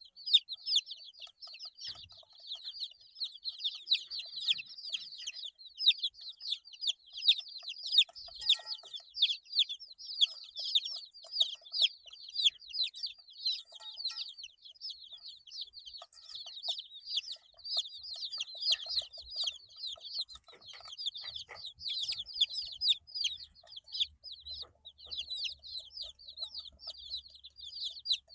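A brood of 8-day-old chicks peeping continuously: many overlapping high, short calls that each fall in pitch, with the odd lower call among them.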